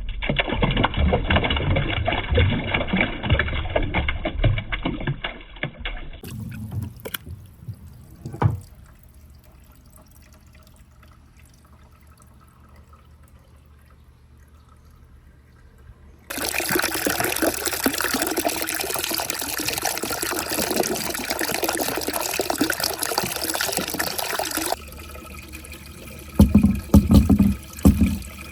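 Water running and trickling down a marble-run course, carrying floating plastic balls. It drops to a faint trickle for several seconds in the middle, comes back louder, and ends with a few low thumps.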